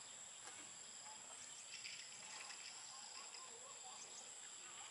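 Quiet outdoor ambience in a grassy field: a steady high-pitched insect drone, with a few faint short chirps.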